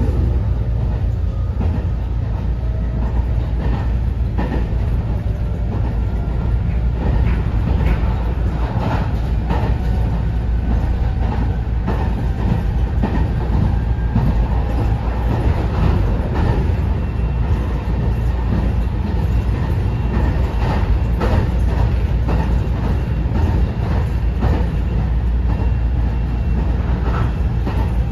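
Interior running sound of a JR West 207 series 2000-subseries electric train, in motor car KuMoHa 207-2012 with Mitsubishi IGBT VVVF inverter drive: a steady rumble of wheels on rail with scattered clicks and knocks from the track and faint whining tones.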